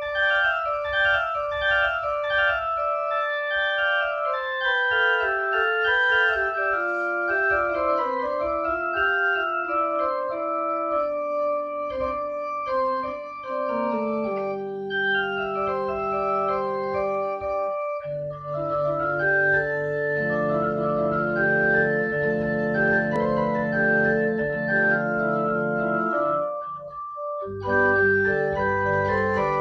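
Digital piano played with an organ sound: a slow instrumental piece of held chords, a moving melody and long sustained bass notes. Brief breaks come about eighteen seconds in and near the end.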